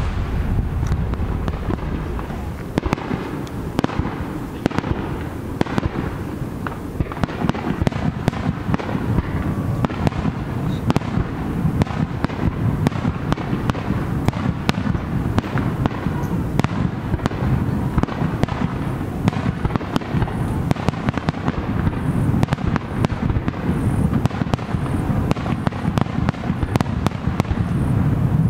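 Aerial fireworks shells bursting in a dense, unbroken barrage of bangs and crackling over a deep rumble.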